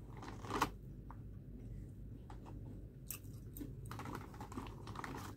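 Crinkling of a plastic chip bag being handled and crunchy snack chips being chewed, heard as scattered crackles and clicks, loudest just under a second in.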